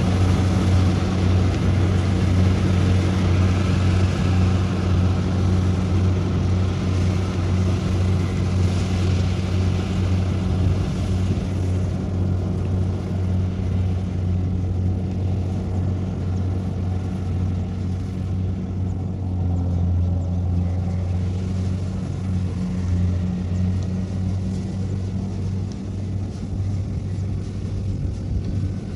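Kubota rice combine harvester's diesel engine running steadily under load as it cuts, a low drone with a rushing hiss above it. The sound slowly gets quieter as the machine works its way off.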